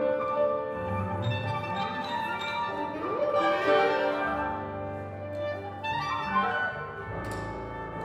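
Contemporary classical chamber quintet of flute, clarinet, electric guitar, piano and double bass playing: overlapping sustained notes with a couple of rising pitch slides, over low bass notes.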